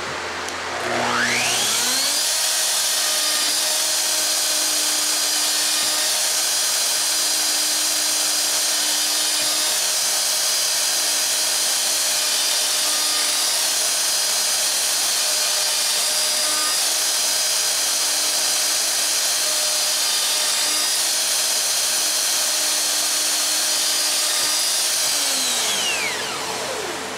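Festool OF 2200 plunge router spinning up with a rising whine about a second in, then running at full speed while plunge-cutting a mortise in wood, its pitch dipping slightly a few times. Near the end it is switched off and winds down with a falling whine.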